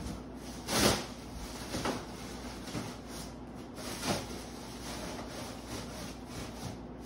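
Plastic wrapping on a new sofa rustling in short swishes as it is pulled and handled. The loudest swish comes about a second in, with others near two and four seconds.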